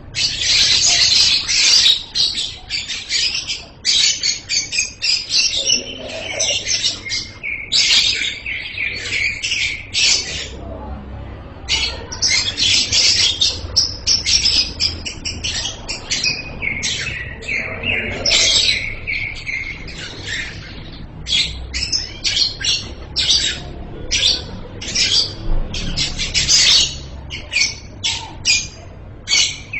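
Lovebird singing loudly in long runs of rapid, shrill chattering, broken by a few short pauses, the longest near the middle.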